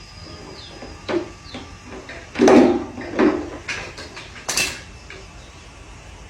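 A series of knocks, clatters and short scrapes of hard objects being handled, about seven in all, the loudest a half-second scrape about two and a half seconds in and a sharp knock about a second and a half later.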